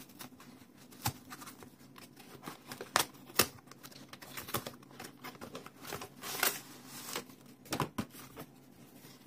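Heavily taped cardboard mailer envelope being torn open by hand: irregular sharp rips and crackles of cardboard and packing tape, the loudest two tears about three seconds in.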